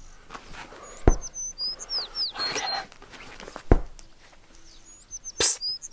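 A songbird singing a short phrase of quick falling whistled notes, twice, about four seconds apart, with two sharp knocks between them.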